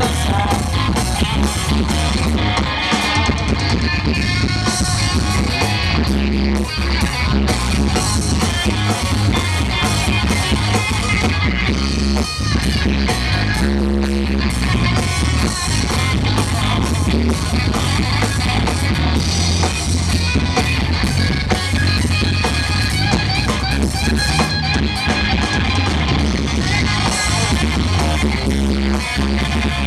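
Live amplified rock band playing: electric guitars, bass guitar and drum kit in a loud, steady full-band mix.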